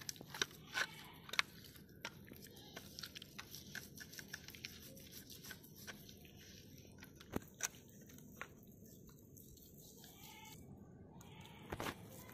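Hands rubbing spice masala paste onto a raw fish in a steel plate: faint rubbing with scattered short clicks, a cluster in the first second and a half, a couple of louder ones a little past the middle and a few more near the end.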